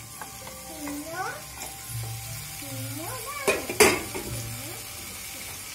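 Chopped amaranth leaves sizzling as they are stirred and tossed in a nonstick frying pan, with two sharp knocks of the spatula against the pan about halfway through. A faint melody plays in the background.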